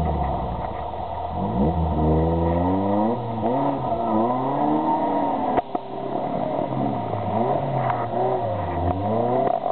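Suzuki SJ-series 4x4's engine revving up and down again and again under load as it works to climb a steep mud bank. A single sharp knock about halfway through.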